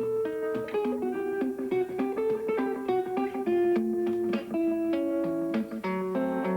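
Solo guitar played in the thumbpicking style: a steady alternating bass line under a quick picked melody.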